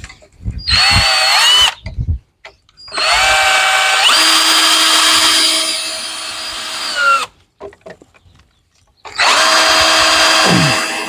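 Cordless drill/driver running in three spurts, driving screws into a wooden chair frame to tighten a loose joint. The longest run, about four seconds, steps up in pitch partway through.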